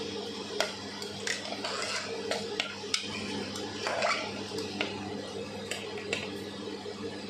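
A metal spoon stirring a watery potato curry in an aluminium pot, with irregular clinks and scrapes against the pot's side. A steady low hum runs underneath.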